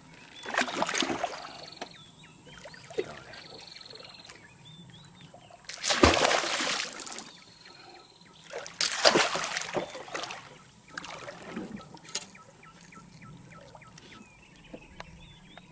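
A hooked giant snakehead (toman) thrashing and splashing at the water's surface. There are three big splashes, about a second in, about six seconds in (the loudest) and about nine seconds in, with smaller sloshes between them.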